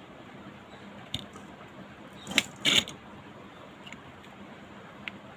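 Tools being handled on a soldering bench: a light click about a second in, then two short rattles close together near the middle, and a faint click near the end.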